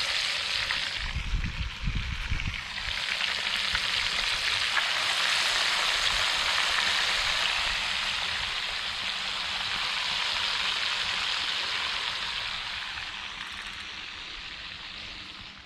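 Small trout frying in hot oil: a steady sizzle that comes up fully after about three seconds and slowly eases off near the end. A few low knocks and rumble sound in the first few seconds.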